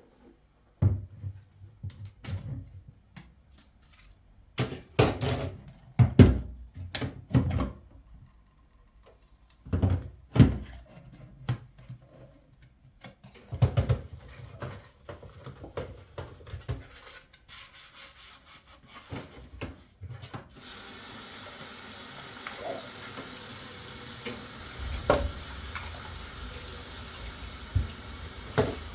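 Kitchen work: a series of separate knocks and clatters of utensils and dishware being handled, then from about two-thirds in a steady rushing sound like water running from a tap.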